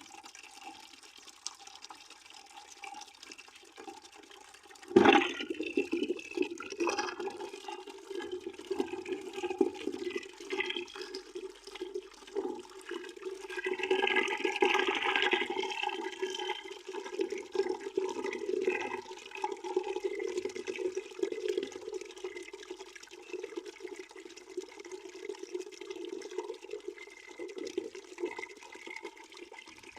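Water pouring into a bucket, a steady splashing rush that abruptly turns louder about five seconds in and stays that way.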